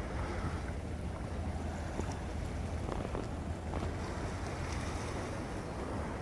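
Wind buffeting the microphone: a steady low rumble over a constant rushing noise, with a few faint ticks in the middle.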